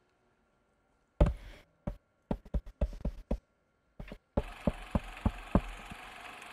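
Light footsteps and taps on a wooden floor in a puppet-animation film's soundtrack. They start about a second in as a few irregular knocks, then from about four seconds in become quicker and even, about three a second, over a faint steady hiss.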